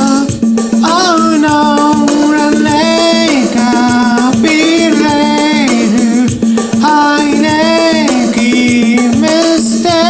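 A man singing a self-composed melody over an electronic keyboard's preset rhythm pattern, with a shaker-like percussion beat and a steady held note under the voice.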